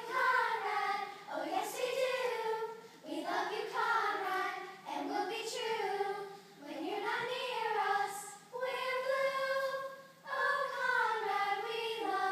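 A chorus of young girls singing together unaccompanied, in short phrases with brief breaths between them.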